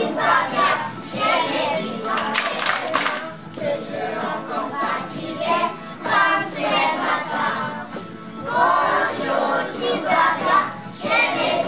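A kindergarten class singing a song together with music, with some hand clapping about two to three seconds in.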